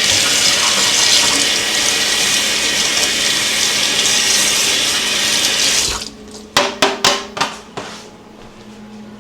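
Kitchen sink tap running full, water splashing into the sink, then shut off about six seconds in, followed by a few sharp knocks and clatters.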